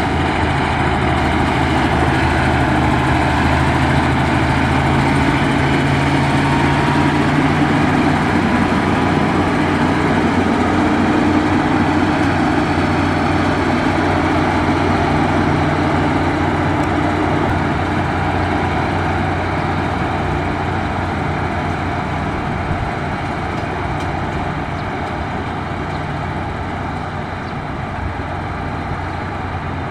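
Diesel engine of a Caterpillar 140H motor grader running steadily while it works a gravel road, with a dense rushing noise over the engine note. It fades slightly near the end.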